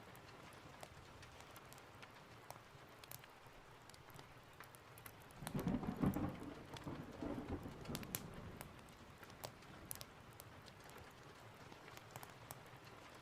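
Steady rain with a low roll of thunder swelling about five and a half seconds in and fading over the next two seconds, with scattered sharp crackles of a wood fire.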